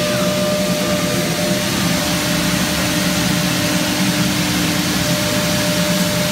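Pade five-axis CNC router running with its dust extraction on: a steady, loud machine noise with a constant whine.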